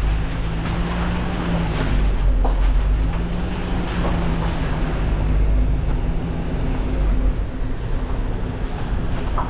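Off-road 4x4's engine running steadily at low speed, with tyres rolling over the rough, rubble-strewn floor, heard inside a narrow rock tunnel.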